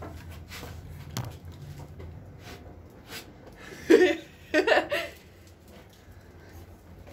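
A person's voice in two short loud outbursts, about four seconds in and again just after, over a faint low hum that dies away in the first half.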